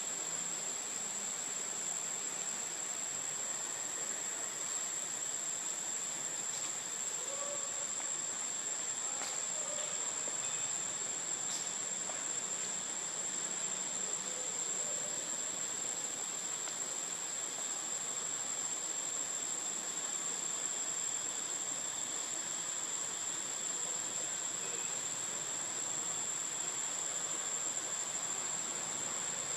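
Steady, high-pitched insect drone, one unbroken whine over a faint hiss, with a few faint ticks in the first half.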